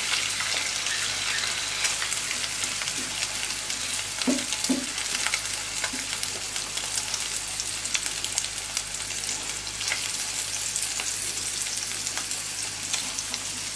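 Beaten egg sizzling in hot oil in a nonstick frying pan with onions, a steady hiss, while a spatula stirs and breaks the egg into crumbles with light scrapes and taps against the pan.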